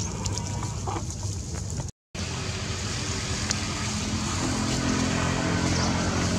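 A motor vehicle's engine running nearby: a steady low drone that swells a little in the second half. The sound cuts out completely for a moment about two seconds in.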